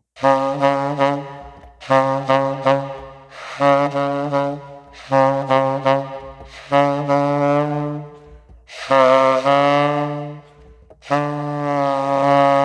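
Saxophone played softly in subtone: a low note sounded about seven times, each held a second or two, with the player lowering the pitch a half step with his lips toward D-sharp. One note about nine seconds in audibly bends downward.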